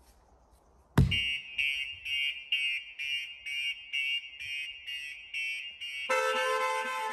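A sharp thump about a second in, then a StarLine S9 car alarm going off: rapid electronic beeping about twice a second, changing near six seconds to a continuous shrill multi-tone wail. The alarm's shock/tilt sensor has been tripped.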